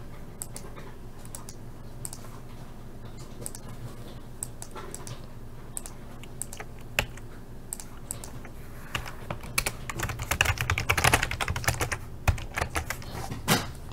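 Typing on a computer keyboard: scattered key clicks at first, then a fast run of keystrokes from about nine seconds in.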